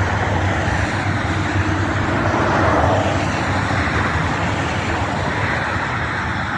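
A motor vehicle's engine running steadily: a low hum under a constant rush of noise, swelling slightly about three seconds in.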